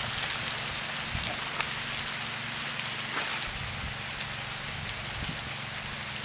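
Horse walking on a leaf-strewn dirt trail: scattered soft hoof thuds and crackles of dry leaves over a steady hiss.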